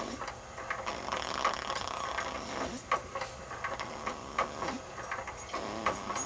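A sleeping baby snoring with a rattling, rasping breath, broken by a few short clicks.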